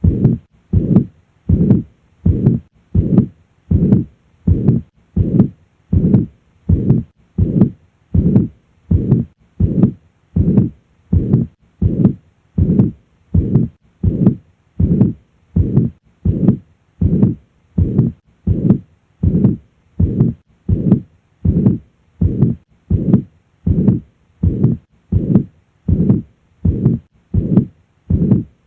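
Heart sounds heard over the cardiac apex, as through a stethoscope, with the murmur of mitral regurgitation filling each beat. The beats come evenly, a little over one a second. The murmur is the sign of blood leaking back through the mitral valve, typically lasting through systole.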